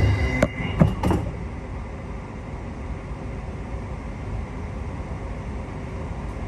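Suburban train's sliding doors shutting: a door warning tone stops about a second in, with three sharp knocks as the doors close and latch. A steady low rumble inside the carriage follows.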